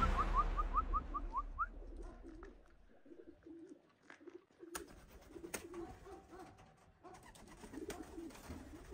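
Domestic pigeons cooing softly, low wavering calls repeated over and over, with a few sharp clicks. At the start a loud sound dies away over about two seconds, with a quick run of short rising chirps on it.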